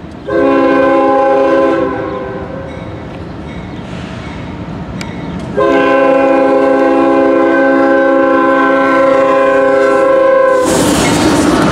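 CSX freight locomotive's air horn sounding a multi-note chord for the crossing: a blast of about a second and a half, then a long blast of about five seconds. The horn sounds fouled, out of tune. Near the end the horn stops and the locomotive passes close by with a loud rush of engine and wheel noise.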